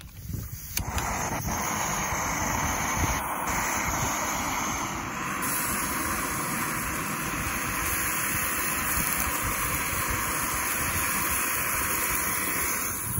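Fire-Maple gas canister stove burning with a steady hiss, and bacon strips sizzling in the pan above it from about five seconds in. Wind buffets the microphone.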